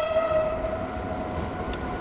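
Train horn sounding a single held tone, fading out about one and a half seconds in, over the low rumble of a train running through the station.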